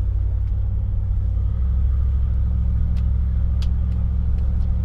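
Cabin of a moving Cadillac Eldorado: steady low engine and road rumble, with several faint, sharp clicks in the second half from something loose inside an interior trim panel. This is the intermittent click that shows up in corners.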